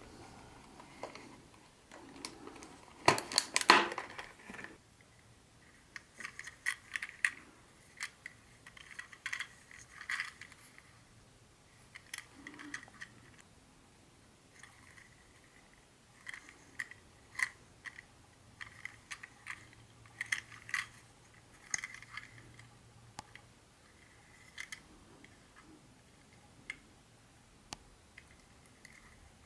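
Small hard parts of an HO-scale model train set being handled and unpacked: scattered clicks and light clinks, with a louder cluster of rattling about three seconds in.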